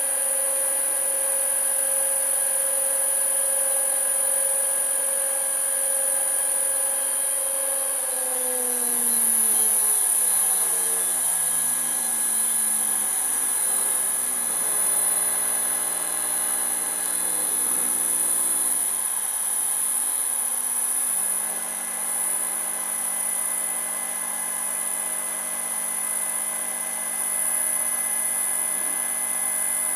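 1 hp three-phase four-pole motor running on a variable frequency inverter: its hum falls in pitch in steps as the drive frequency is turned down, dies out about two-thirds of the way through, then comes back as a lower steady hum. A constant high-pitched whine runs under it throughout.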